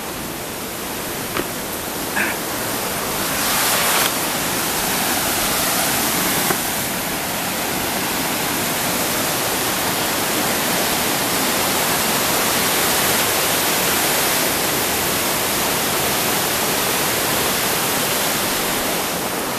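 Waterfall rushing down a rocky cascade: a constant hiss of falling water that grows a little louder a few seconds in and then holds steady.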